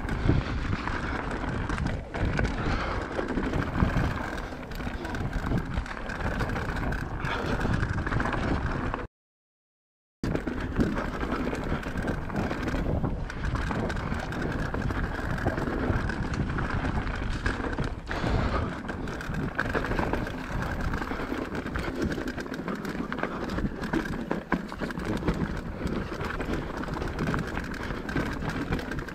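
Mountain bike descending a rough dirt trail, picked up by a GoPro action camera riding along: a continuous rattle of tyres over stones and roots and the chain and frame clattering, full of small knocks. The sound cuts to silence for about a second, a third of the way through.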